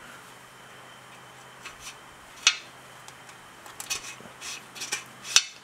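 Light metallic clicks and taps of a steel tappet being slid into and worked in its freshly lapped bore in a Willys L134 engine block: one click about two and a half seconds in, then a quick run of small taps near the end. A faint steady hum runs underneath.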